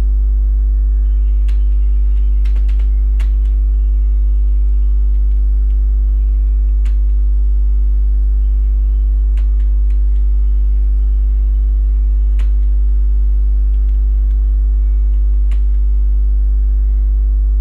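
Loud, steady electrical mains hum: a low drone with a ladder of higher overtones above it, unchanging throughout. A few faint clicks sound now and then over it.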